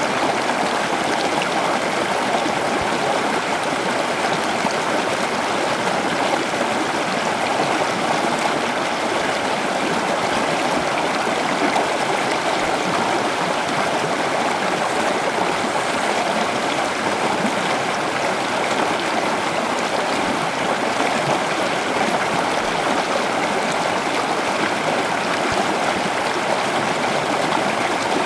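Rushing water of a river or stream, a steady, unbroken rush.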